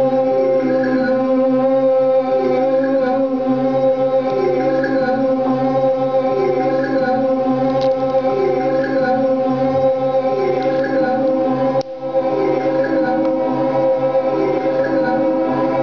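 Live experimental drone music, played through a microphone and effects pedals: several steady held tones layered together, with a soft pulsing figure recurring about every two seconds. The sound dips out briefly about twelve seconds in.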